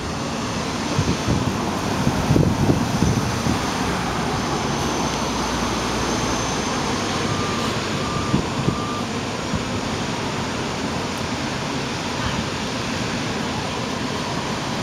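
City transit bus engine running with steady traffic noise around it as the bus moves out of the terminal. About halfway through, three short beeps sound in a row.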